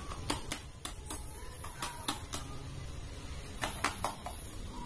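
Hard plastic clicks from a toy assault rifle being handled, about ten sharp clicks in three quick groups.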